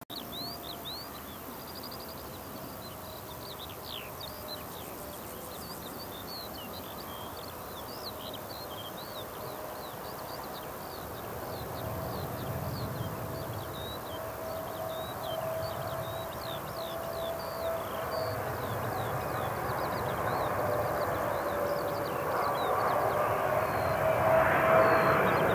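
Boeing 777 freighter on final approach with gear down, its GE90 jet engines growing steadily louder as it nears. A steady droning tone wavers slightly in pitch over a rising rush of jet noise.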